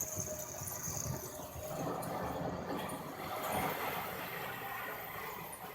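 Vehicle engine running steadily with a low rumble.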